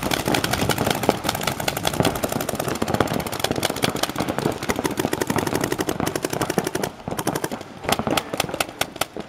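Many paintball markers firing at once in rapid volleys of sharp pops, at the opening rush of a speedball point. The fire thins to more separate shots about seven seconds in.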